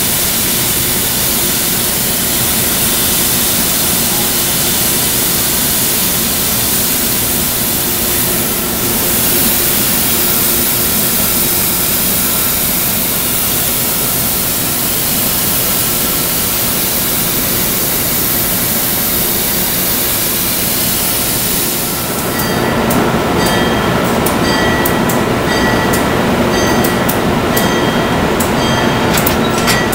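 Amtrak AEM-7DC electric locomotive running while it stands at the platform, a loud steady rushing noise. About two-thirds of the way through, rapid clicking and several steady tones join in.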